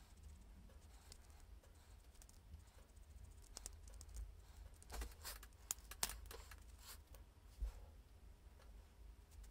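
Faint clicks and taps of plastic makeup packaging being handled, bunched in the middle, as a brow pencil is set down and a brow cream wand is taken up. A low hum runs underneath.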